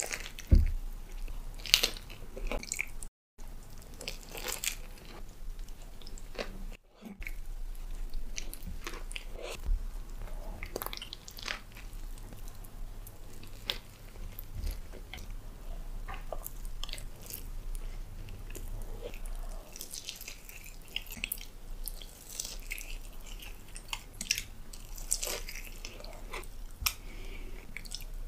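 Close-miked biting and chewing of a brisket sandwich on a bread roll: sharp bites and some crunching, then steady wet, smacking chewing. The loudest bites come in the first two seconds, and the sound drops out briefly twice, at about 3 and 7 seconds.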